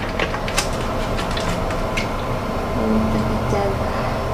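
A steady low mechanical hum, with a few light clicks and crackles of a plastic vinegar bottle being handled and its cap twisted off.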